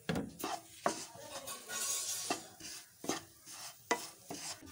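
Spatula stirring and scraping roasting grated coconut and freshly added coriander powder around a non-stick pan, with a string of scrapes and taps against the pan and a light sizzle.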